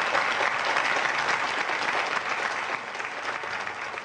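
Studio audience applauding steadily, the clapping easing slightly near the end.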